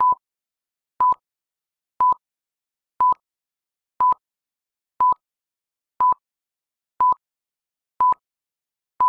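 Electronic countdown-timer beeps: short, high beeps all at the same pitch, one each second, ten in all, counting down the time to answer a quiz question.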